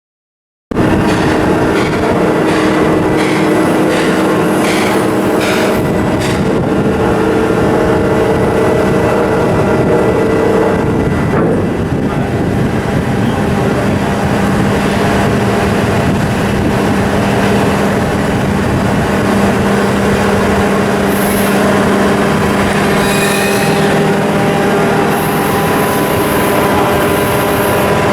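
Ship's diesel engine running steadily: a loud, even rumble with several steady tones over it, some of which change about eleven seconds in.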